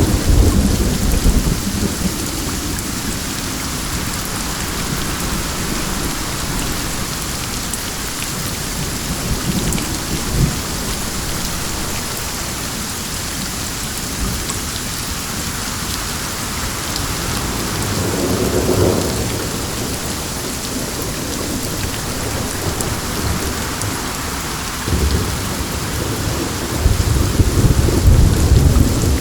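Steady rain hissing down, with low rumbles swelling up near the start, again about two-thirds of the way through, and building toward the end.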